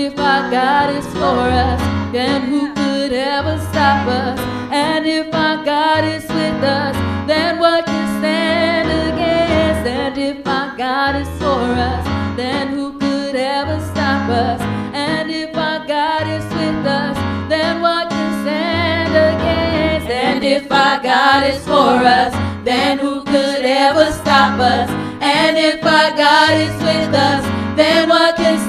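Women singing a slow gospel worship song with sustained, wavering notes, accompanied by an electric keyboard.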